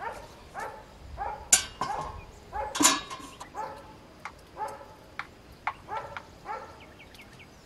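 An animal giving a series of short, high, falling calls, roughly two a second. Two sharp knocks stand out among them, about a second and a half in and near three seconds.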